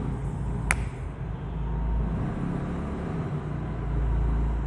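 Low rumble of road traffic that swells and fades, with one sharp click about three quarters of a second in.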